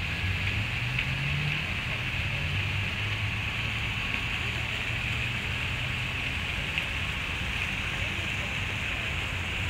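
Steady outdoor background noise: an even hiss with a low hum beneath it.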